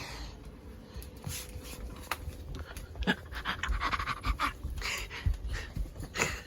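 Rapid, repeated panting breaths, with a few sharp clicks and low knocks among them.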